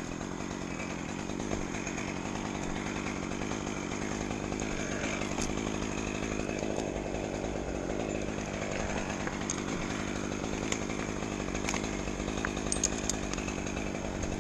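Chainsaw-like power tool engine running steadily at high speed, with a few light clicks and taps.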